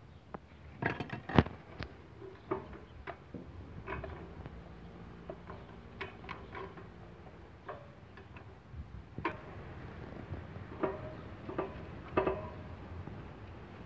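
Irregular clicks and light knocks of hand tools and plastic parts being handled on a small engine's air-filter housing and carburetor. The loudest knock comes about a second and a half in.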